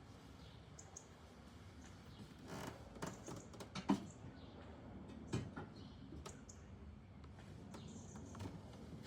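Faint scattered clicks and light knocks, several close together a few seconds in and one more about halfway through, over a soft steady background hiss.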